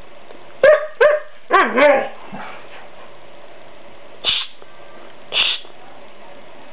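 Young Siberian husky vocalizing back at its owner: two short sharp barks about half a second in, then a quick wavering, up-and-down 'talking' yowl. Two short breathy huffs come later.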